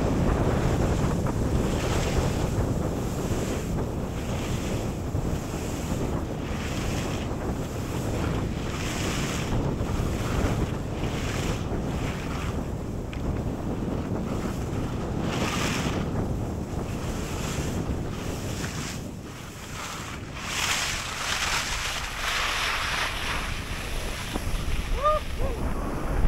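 Wind buffeting a moving camera's microphone as a low rumble, with the hiss and scrape of skis on groomed snow swelling every second or two as the skier turns.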